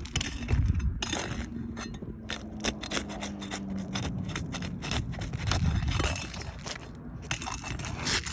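Irregular scraping, clinking and crackling as old roof shingles are pried up and torn loose. A faint steady low hum runs beneath.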